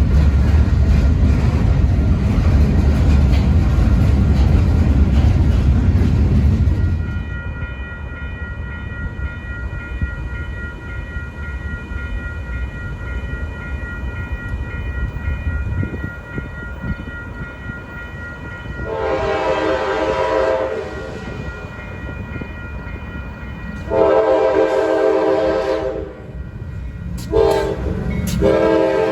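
A train's heavy low rumble fills about the first seven seconds and ends abruptly. Later a locomotive air horn sounds the grade-crossing pattern: two long blasts, a short one, then a long one. A faint steady high tone runs beneath.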